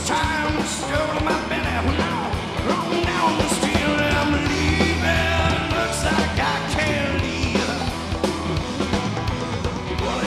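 Live rock band playing: electric guitar over drums and bass.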